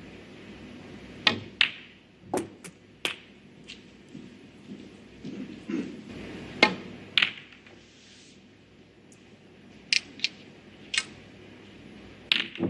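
Snooker balls clicking on a match table: the cue tip striking the cue ball, ball-on-ball contacts and balls knocking against cushions and into pockets. These are sharp single clicks, with a cluster in the first three seconds and more around seven and between ten and twelve seconds, as a red and then the black are potted. Under them is a faint hush of the arena.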